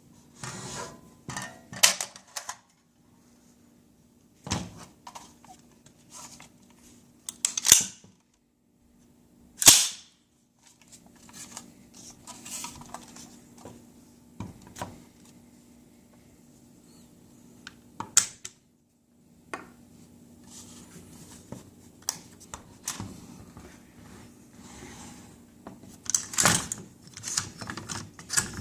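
Metal parts of an AR-15 rifle being handled and taken apart: a handful of sharp metallic clacks several seconds apart, with quieter rattling and scraping of parts between them.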